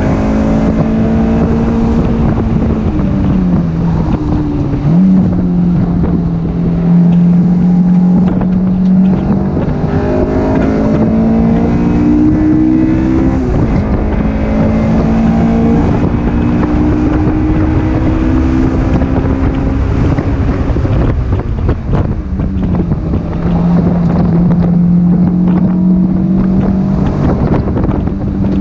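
2004 Honda S2000's four-cylinder engine running through the gears on a track lap, heard from the open-top cabin. Its pitch climbs steadily with speed and drops sharply at each gear change, several times, with wind rushing past the open cockpit.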